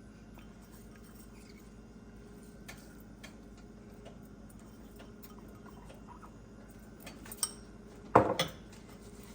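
Faint, scattered clinks of a utensil against a pressure-cooker pot, with a louder short clatter about eight seconds in, over a low steady hum.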